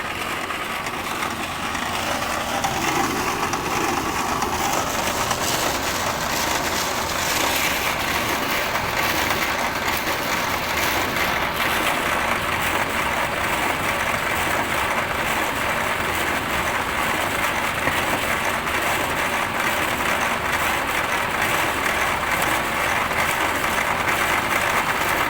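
Wood pellet machine running on trial: a steady, loud mechanical noise that carries on without a break.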